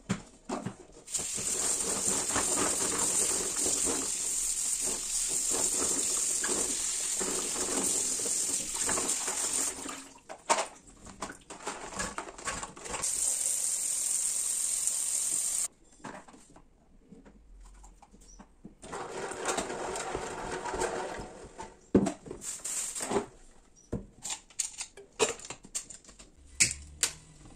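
Kitchen tap running into a sink and into an aluminium pressure cooker: water runs steadily for most of the first ten seconds, then twice more in shorter stretches. Sharp knocks and clunks of the metal pot, its lid and a plastic colander being handled come between and after the water.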